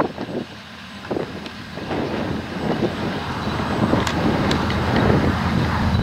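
Self-propelled potato harvesters running in the field: a steady engine and machinery rumble that grows louder as a Dewulf RA 3060 harvester comes close, with a few sharp clicks about four seconds in.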